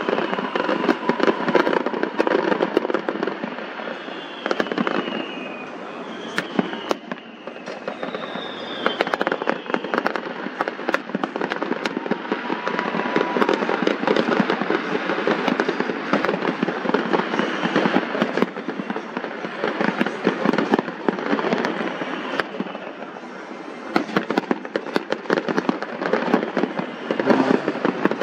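Fireworks going off: a dense, continuous crackling of many rapid pops and bangs, with a few short whistling tones about five to nine seconds in.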